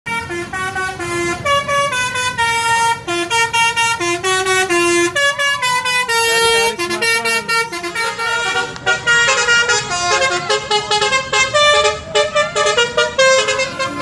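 Basuri telolet bus horn playing a fast tune, its multi-trumpet chord jumping between short notes several times a second.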